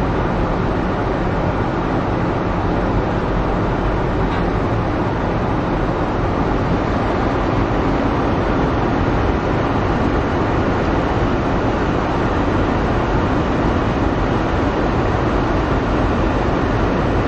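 Steady running noise inside a driverless cable-hauled, rubber-tyred airport people-mover car as it travels along its guideway.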